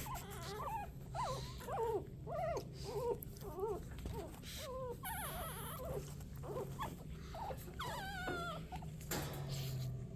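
Three-week-old Shih Tzu puppies whimpering, a string of short rising-and-falling squeaky cries, with a higher, wavering cry near the end.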